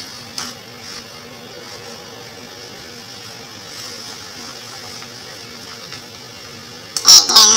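Steady low hum and hiss of room noise, with a faint click just after the start. About seven seconds in, a loud, high-pitched sound with a wavering pitch breaks in suddenly.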